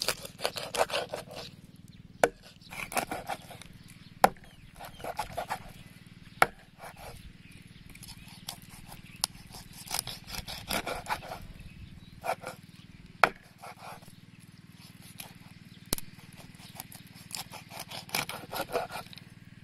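Large knife cutting a scaled fish into steaks on a wooden chopping board: stretches of crunching as the blade cuts through the scaly skin, broken by several sharp knocks of the blade striking the board.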